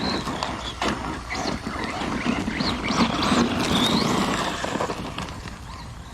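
Electric RC car driven hard on a 3D-printed nylon spur gear: the motor whines up and down in pitch over drivetrain and tyre noise, with scattered knocks. The slipper clutch is still slipping, by the driver's own feel. It is loudest about halfway and eases off near the end.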